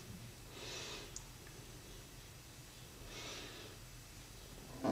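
Two soft breaths through the nose close to the microphone, a little under a second in and again about three seconds in, then a sharp knock at the very end.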